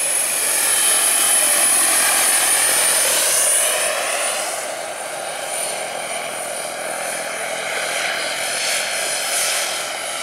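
Turbine engine and rotor of a large radio-controlled EC-120 scale model helicopter in flight: a high, steady turbine whine over the rotor noise. It is loudest over the first three or four seconds, where the whine dips slightly in pitch as the model passes, then runs a little quieter.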